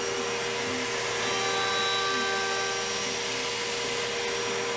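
Shop vacuum running steadily as it sucks padauk chips off a CNC router bed, with the router's steady hum underneath.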